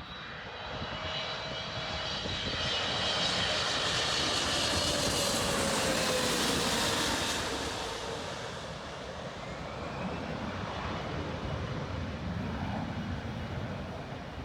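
Heavy jet airliner passing close on final approach to land. The jet engine noise swells to a peak about five seconds in, its whine sliding down in pitch as it goes by, then eases off.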